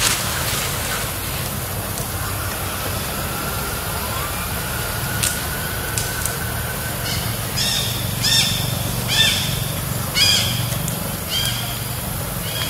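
Outdoor ambience: a steady low rumble like a nearby engine running. Over it, from about halfway through, a run of short, high chirping calls comes roughly once a second.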